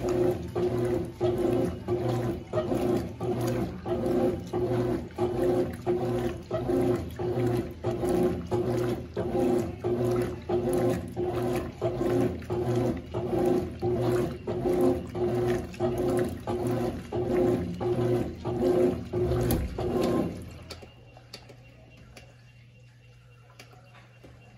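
Consul CWS12 12 kg washing machine agitating, its motor driving the wash back and forth in regular strokes, about one and a half a second, with water sloshing. The agitation stops suddenly about 20 seconds in, leaving a faint steady low hum.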